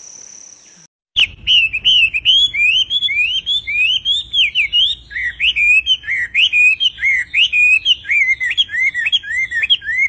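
A steady high insect-like trill for the first second, then, after a brief gap, a Chinese hwamei singing: a loud, fast, unbroken run of varied whistled notes sweeping up and down.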